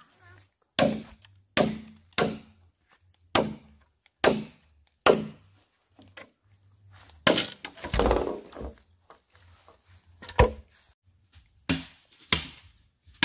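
A tool chopping into wood with repeated sharp blows, roughly one a second, with a longer, rougher sound of breaking wood around seven to eight seconds in.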